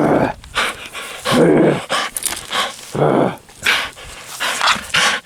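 A pet dog vocalising while it plays, in several short bursts about a second apart.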